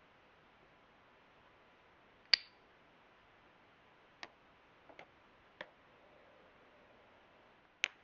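Sharp little clicks and taps of small hard gadget parts being handled during an unboxing, about six in all over a faint hiss. The loudest comes about two seconds in, with a brief ring after it; two come close together around the middle.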